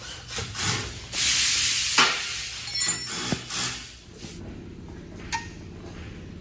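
Engine oil pouring from the car's open drain hole into a plastic tub: a loud splashing hiss for about a second, fading over the next two. A few sharp metal clinks come about three seconds in.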